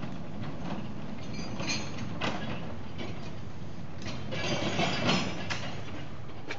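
Steady low rumble from a narrow-gauge train standing at the points, with a sharp click about two seconds in. About four seconds in, a ground-frame lever is pulled to change the points, clanking and rattling for about a second.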